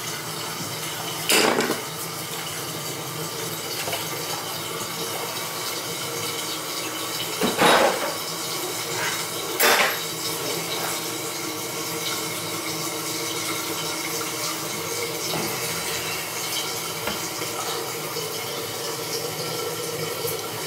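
Toilet tank refilling through its fill valve: a steady hiss of running water. Three sharp clinks or knocks of metal or porcelain cut through it, about one and a half, seven and a half and nine and a half seconds in.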